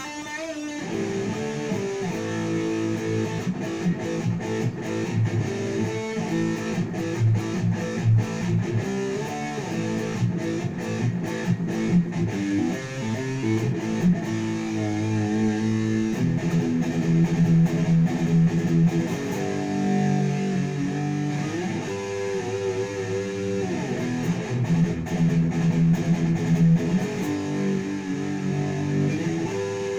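Jackson KVXMG King V electric guitar played through an amplifier: picked single notes and chords that keep changing, with some chords let ring for a second or two.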